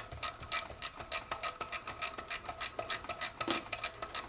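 Hand tool working metal on a small engine in quick, even back-and-forth strokes, about three to four a second.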